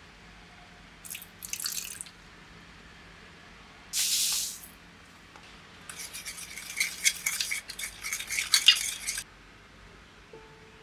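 Kitchen food-prep sounds: a short hiss about four seconds in, then about three seconds of quick rattling and clicking.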